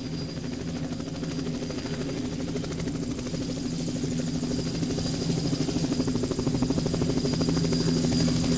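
An engine running steadily, a low hum with a rapid even flutter and a thin high whine over it, growing gradually louder.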